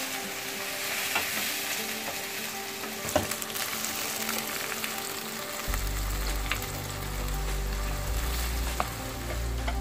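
Chopped vegetables sizzling in hot oil in a wok as they are stirred with a wooden spatula, with a few short taps of the spatula against the pan. A steady low hum joins a little past halfway.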